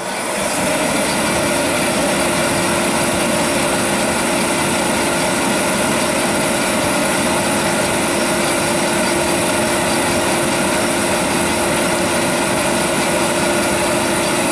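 Forced-air heater running steadily on its test run after a fuel-line and filter clean-out, coming up to full volume in the first half second, with a steady hum that sets in about a second in.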